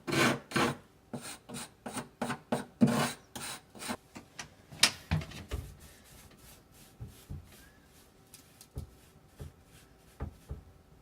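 Scraping and rubbing on the wooden frame of a door's glass opening as leftover glass and debris are cleaned out. Quick strokes come about two or three a second for the first five seconds, then fewer and fainter ones.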